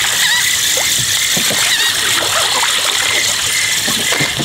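Water splashing over a steady hiss of wind on open water, as a hooked fish thrashes at the surface near the boat.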